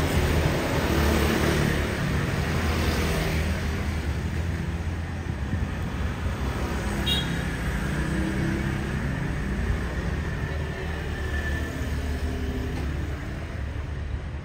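Motor scooters running along a narrow street, a steady engine hum that is loudest at the start and slowly fades as they pass.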